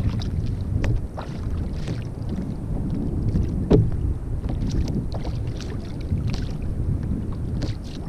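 Wind rumbling on the microphone, with scattered light clicks from fishing tackle being handled in a kayak and one louder knock about three and a half seconds in.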